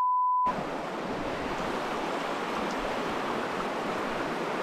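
A steady, high-pitched censor beep that cuts off about half a second in, followed by the steady rush of a shallow stream running over rocks.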